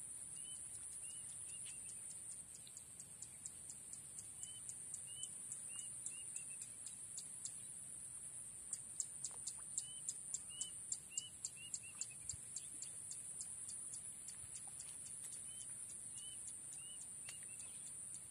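Outdoor insect chorus: a steady high-pitched drone of crickets throughout, with a rapid run of clicking ticks, several a second, loudest around the middle. Short chirps come in little runs of three to five, about every few seconds.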